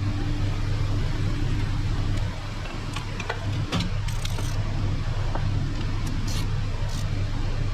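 A steady low mechanical hum, with a few light clicks a few seconds in and several brief hissy sounds after them.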